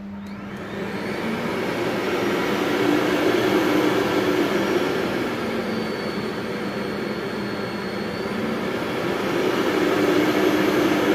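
Philips FC9924 Marathon Ultimate canister vacuum cleaner's motor switching on from the handle's remote buttons and spinning up over about three seconds to a steady whir. Its speed drops a little midway, then rises again near the end, as the suction setting is changed from the repaired remote-control handle.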